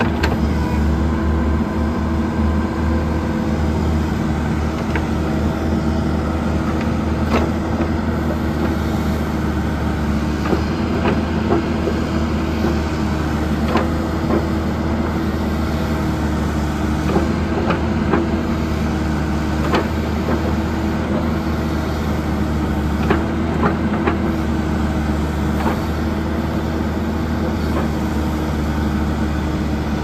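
John Deere 310SJ backhoe loader's four-cylinder diesel engine running steadily under hydraulic load as the rear hoe digs, lifts and swings. Sharp knocks come from the hoe every few seconds.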